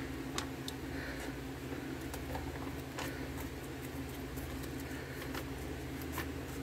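Scattered light clicks and crinkles of a plastic MRE meal tray being handled and opened, over a steady low hum.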